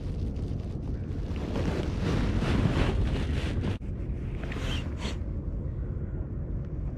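Wind buffeting the microphone: a heavy low rumble with gusty hiss that drops abruptly a little before four seconds in, then goes on as a duller, steadier rumble.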